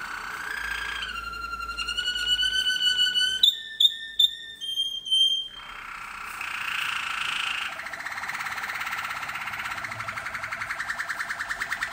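Domestic canary, a tutor bird, singing: long held whistled notes that step up in pitch, a few short sharp notes, a harsher stretch, then a rapid even trill from about eight seconds in.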